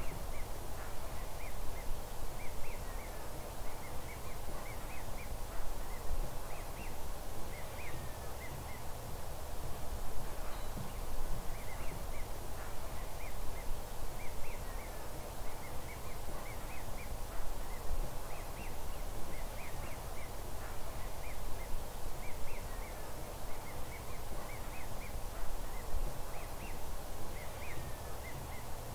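Distant flock of waterfowl calling: many short, high calls in loose clusters every second or two, over a steady low rumble.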